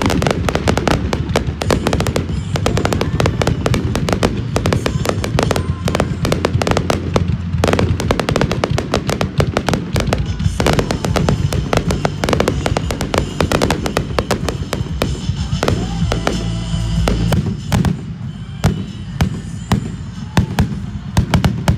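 Aerial firework shells bursting in a dense barrage, many sharp bangs a second, with the biggest bangs near the end. Music plays underneath.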